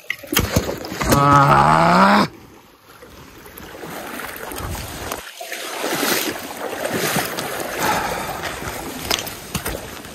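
Shallow river water rushing and splashing around legs wading through the current. Near the start a loud, wavering pitched sound lasts about a second.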